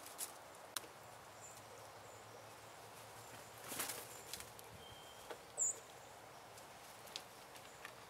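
Blue jay wings flapping in a brief flutter a little before halfway as the bird lands, among scattered faint clicks. Just past halfway comes one short, high bird chirp, the loudest sound.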